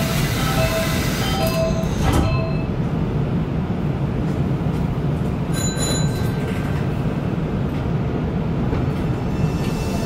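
Nankai 8300 series electric train standing at a station with a steady low hum from its equipment. A few short tones and clicks sound in the first couple of seconds, and another click with brief high tones comes near the middle.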